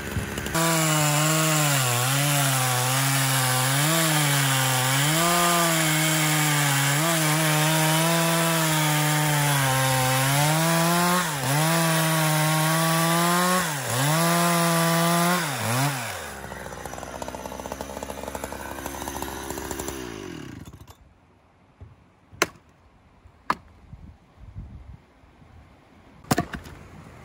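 Husqvarna 365 X-Torq two-stroke chainsaw running at full throttle while cutting logs, its pitch dipping and recovering again and again as the chain bites into the wood. About sixteen seconds in it drops back, fades and stops. A few sharp knocks follow.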